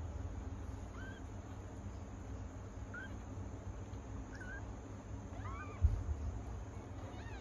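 Young kittens mewing: about five short, high, squeaky calls spaced a second or so apart, with a louder run of mews a little over two-thirds of the way in. A single low thump follows just after that run.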